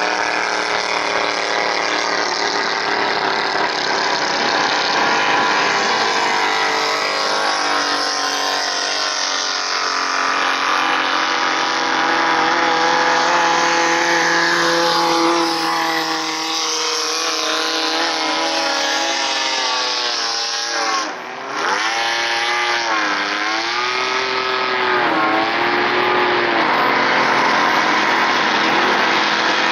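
Racing speedboat engines running hard at high revs. The engine notes hold and slide in pitch as the boats pass; about 21 seconds in the sound dips briefly, then one engine's revs rise and fall several times.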